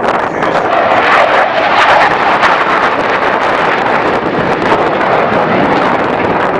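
Hawker Hunter jet fighter's engine noise during a display pass: a loud, steady jet roar that swells slightly about a second or two in.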